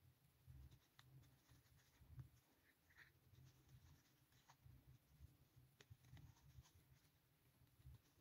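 Near silence, with the faint rustle and light scattered clicks of a crochet hook working acrylic yarn, and soft handling bumps.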